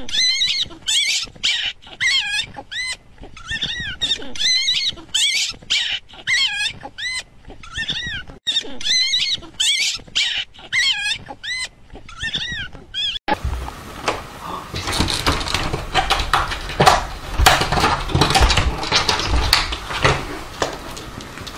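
A kitten mewing over and over in high, thin squeaks that rise and fall, about one to two a second. About two-thirds in, a sudden change to a rougher stretch of noise with knocks and clatter.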